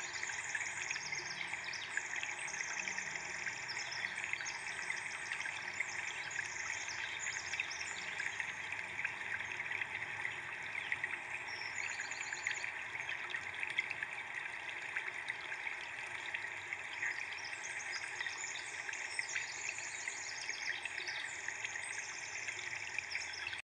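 Nature-ambience track: small birds chirping in rapid high trills over a steady rush of running water. It cuts off suddenly at the end.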